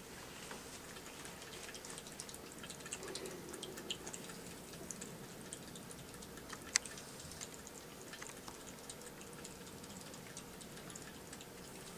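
Domestic cat lapping water from a toilet bowl: faint, irregular small wet ticks, with one sharper click about two-thirds of the way through.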